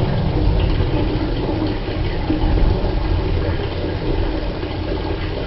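Water running steadily from an instant water heater's outlet into a bucket, a continuous deep rushing sound.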